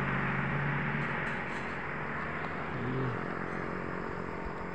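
A car on the road moving away after passing, its engine and tyre noise slowly fading, with a low engine hum in the first second.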